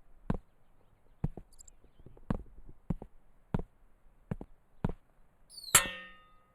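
A series of short, sharp knocks at an uneven pace, then near the end a single metallic clang that keeps ringing.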